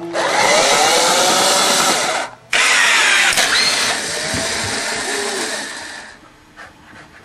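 Homemade tennis-ball launching machine running its motors: a loud whirring that runs for about two seconds, stops briefly, then runs again for about three and a half seconds, with a sharp click in the middle of the second run, before dying away.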